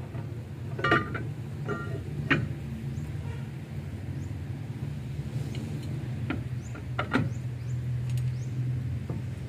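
Sharp metal clinks and knocks as a minibus brake drum is worked onto the wheel hub, some ringing briefly, the loudest about one and two seconds in and a cluster around seven seconds. Under them runs a steady low hum like an idling engine.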